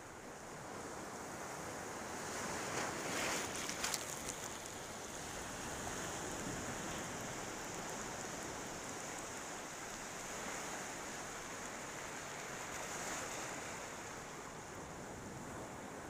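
Small ocean waves breaking and washing up a shallow beach as a steady hiss, with one louder wave crashing about three seconds in and a softer one near the end.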